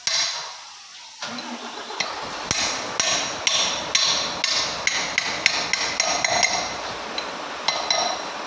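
Hammer blows on metal during a lorry gearbox repair: a quick series of strikes, about two to three a second, each with a high metallic ring, over a steady background noise.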